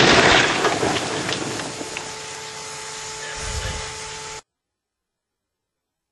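Small car crashing into a SoftStop guardrail end terminal: a loud crash at the start, then clattering and scraping for about a second, fading into a steady rushing noise with a dull thump near the end before the sound cuts off abruptly.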